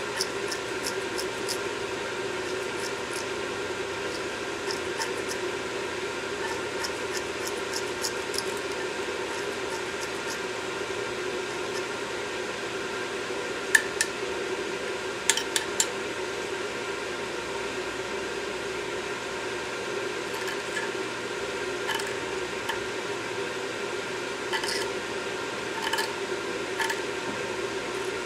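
A small metal pick scraping and tapping on an EGR valve as deposits are cleaned off it: scattered light clicks, with a few sharper taps about halfway through and again near the end, over a steady low hum.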